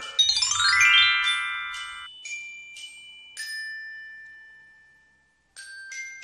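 Chiming jingle of bell-like notes: a quick rising run, then single ringing notes one after another, the third held and fading away. There is a brief gap, then more ringing notes come in near the end.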